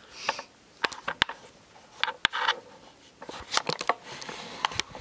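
Objects being handled at close range: a string of sharp clicks and taps, about a dozen, irregularly spaced, with brief rustling in between.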